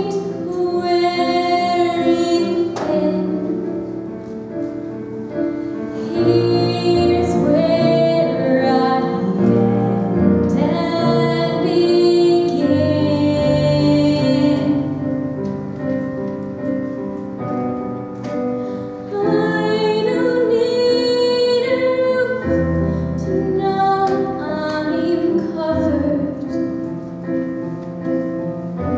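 A teenage girl singing a musical-theatre ballad solo into a microphone, holding long notes, accompanied by chords on a Kurzweil digital piano.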